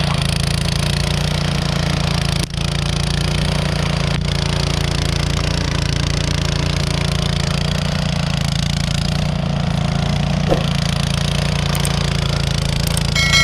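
An engine running steadily at a constant speed, with a brief drop in level about two and a half seconds in.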